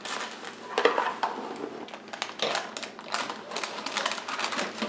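Parchment paper rustling, with light clicks and clatter of a metal baking pan and a spatula, as a cake is lifted out of the pan by its paper liner.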